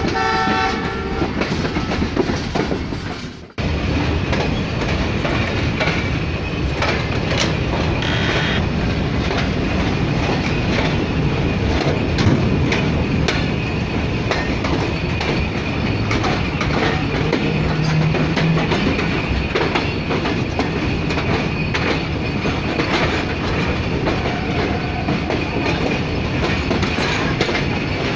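A brief horn-like tone fades out in the first few seconds. Then a passenger train rolls slowly through a junction, heard from an open coach window: steady wheel-and-rail noise with clickety-clack as the wheels cross rail joints and points.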